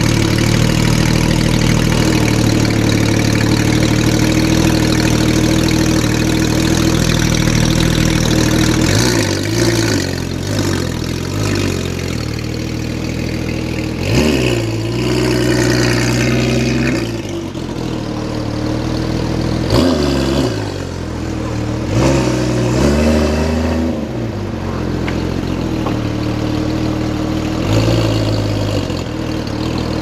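A sports car's engine idling steadily, then revved several times, each throttle blip rising quickly in pitch and falling back to idle.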